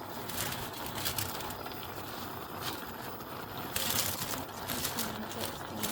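A plastic bag of spinach rustling and crinkling in irregular spurts as handfuls of leaves are pulled out for the pot, loudest about four seconds in.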